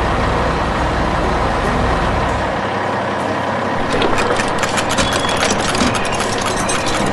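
Heavy construction machine engine sound effect running steadily. A low rumble drops away about two and a half seconds in, and rapid clicks and knocks join from about four seconds in.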